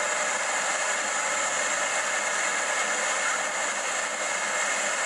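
Steady hissing rush of a duck boat under way, its engine noise and the moving air blended into one even noise.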